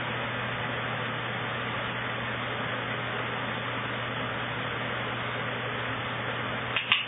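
Electric fan running: a steady hiss with a low, even hum underneath. A short click comes near the end.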